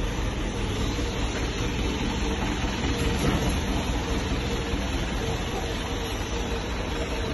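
Steady mechanical running noise with a faint even hum throughout, with no distinct knocks or starts.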